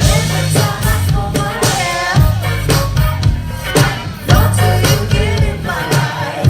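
Live band music with a steady beat, bass and drums, and a voice singing over it.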